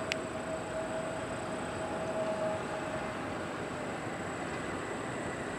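Airbus A320neo's jet engines on the landing rollout: a steady rush of engine noise, with a steady whine that fades out about halfway through.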